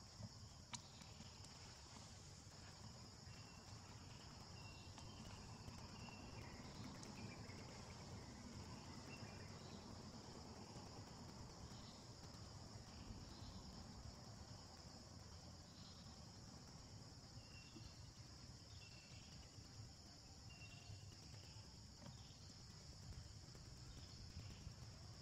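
Faint outdoor ambience: a steady high-pitched insect drone throughout, with scattered short chirps and a low rumble underneath.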